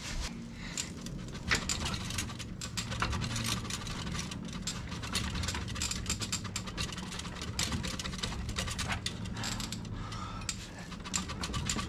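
Metal clicking and rattling as a motorcycle's exhaust pipes are twisted and worked apart by hand at a slip joint, over a low steady hum.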